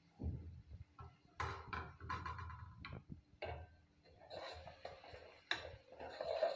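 A metal spoon scraping and knocking inside an aluminium cooking pot as chopped vegetables are tipped in from a plate and stirred, in irregular clicks and scrapes.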